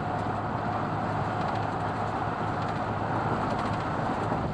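Steady road and engine noise inside a car driving on the highway, an even drone with a low hum underneath.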